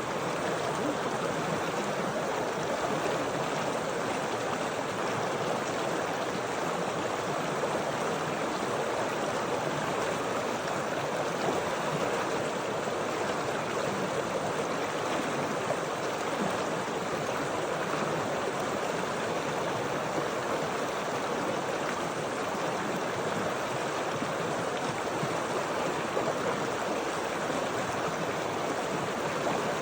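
Stream water flowing steadily, an even rushing and burbling.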